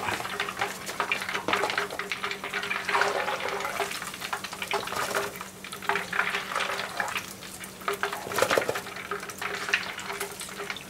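Hot frying oil crackling and bubbling in a pot while a mesh skimmer is drawn through it to lift out crumbs of fried batter. A steady low hum runs underneath.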